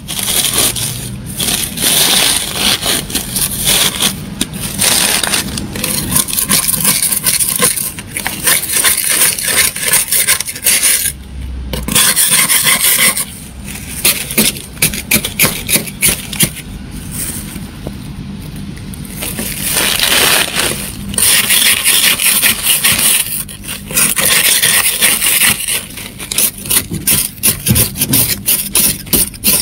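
A white plastic scraper scraping thick frost and ice off a freezer's inner walls, close up, in quick repeated rasping strokes. There is a short break about eleven seconds in and a quieter stretch a few seconds later.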